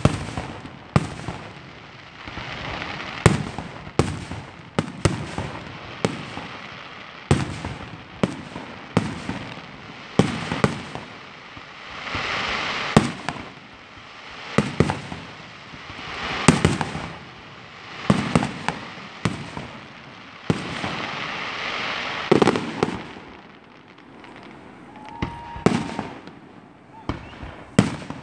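Aerial fireworks shells bursting in steady succession: sharp bangs about every second, with a few longer stretches of noise between them, thinning out near the end.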